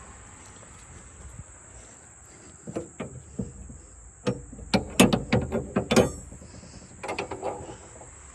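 A run of sharp mechanical clicks and knocks, starting about two and a half seconds in and loudest around five to six seconds, over a steady high thin whine.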